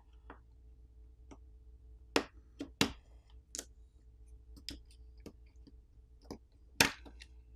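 Irregular light clicks and taps of hands handling the parts of an opened smartphone with a plastic pry pick, the loudest a little over two seconds in and near the end.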